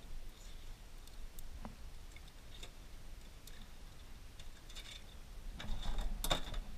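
Cooked blue swimmer crab being pulled apart by hand: small scattered clicks and cracks of shell, with a louder cluster of cracks near the end.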